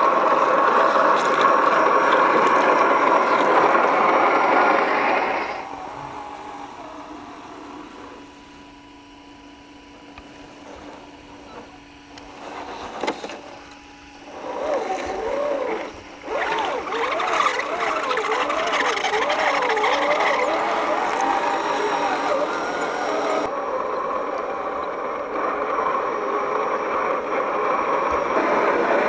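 Scale RC crawler on an MST CFX chassis driving over rocks: its 27-turn brushed 540 motor and geared drivetrain whine, the pitch rising and falling with the throttle, with a few clicks partway through. The sound changes abruptly twice as the shot cuts.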